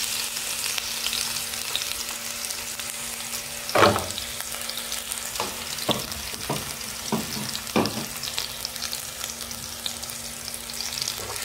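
Crushed ginger, garlic and green chillies sizzling in hot oil in a frying pan: a steady frying hiss with a few sharp clicks between about four and eight seconds in, the loudest about four seconds in. A faint steady low hum runs underneath.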